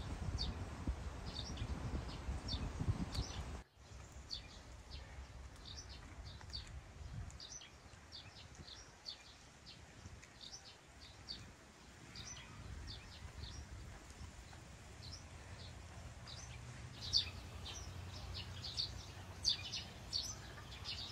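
Birds chirping in short, high, repeated calls, a few a second, louder near the end. A low rumble lies under them for the first few seconds and stops abruptly.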